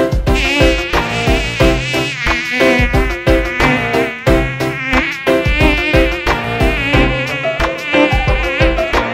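Insect-wing buzzing sound effect for a flying cartoon bee, its pitch wavering up and down, over a backing track with a steady beat.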